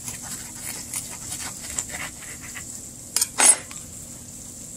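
A table knife cutting through toasted sandwiches on paper plates, with small scrapes and crunches, then two sharp clatters a little past three seconds in as the knife is set down on the counter.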